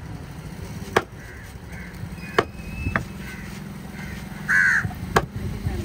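Heavy broad-bladed knife chopping fish on a wooden stump block, four sharp chops spaced a second or more apart. A crow caws once about four and a half seconds in.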